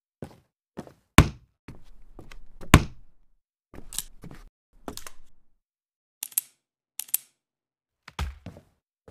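Sound effects for a clear plastic storage box being opened and a toy gun taken out: a few thunks, two of them loud about a second and a half apart, then lighter sharp plastic clicks.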